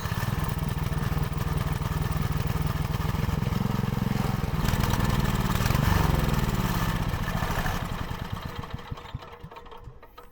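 Small engine of a farm crawler carrier running, revving up about halfway through and dropping back, then fading out near the end.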